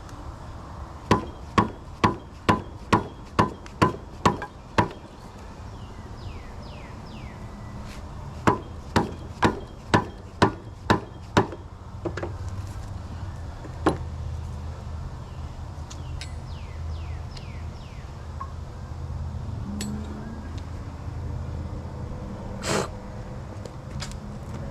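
Hammer blows on the seized parts of a Tulsa 34 winch, metal on metal, struck about two a second. The blows come in a run of nine, then a run of seven, then a single blow about halfway through, all aimed at driving apart plates and a gear stuck together for decades.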